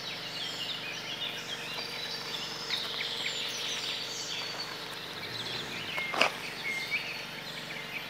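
Birds singing in dense woodland, many short chirps and whistles overlapping, with one sharp knock about six seconds in.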